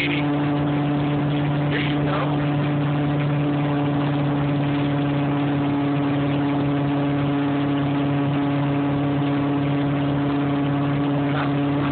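Tow boat's engine running steadily at pulling speed, a constant drone with the rush of its churning wake.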